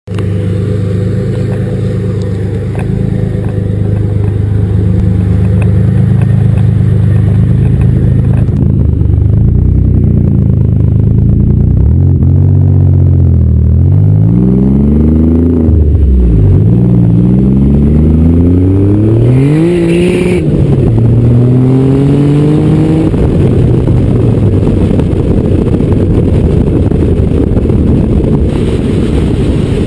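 Twin-turbocharged V6 of an Infiniti G35 sedan, steady for the first several seconds. It then accelerates hard through the gears, its pitch climbing and dropping back sharply at each shift several times, and gives way near the end to a steady rush of wind and road noise at speed.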